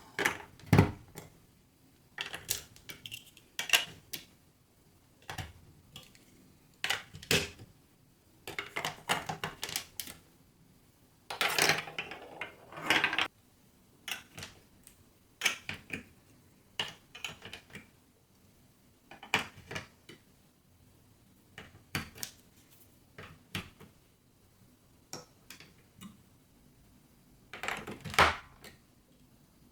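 Marbles rolling and clattering down a building-block marble run: short bursts of sharp clicks and rattles every second or two, with brief quiet gaps between.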